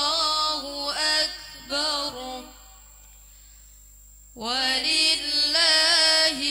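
A woman reciting the Qur'an in a melodic, ornamented chant, her voice wavering up and down on long held notes. She pauses for about two seconds midway, then takes up the recitation again.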